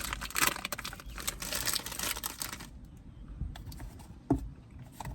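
Crinkling and crackling of a Fritos corn chip bag being handled, dying down after about two and a half seconds to scattered small clicks.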